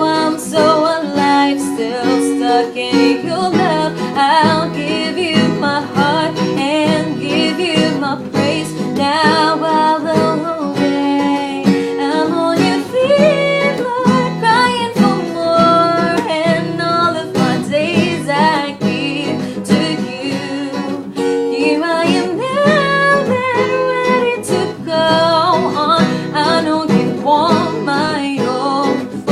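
Music: a pop song with guitar accompaniment and a wavering melody line over it, singing without clear words.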